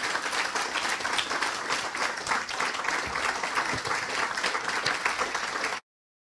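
Audience applauding: a dense patter of many hands clapping, which cuts off suddenly near the end.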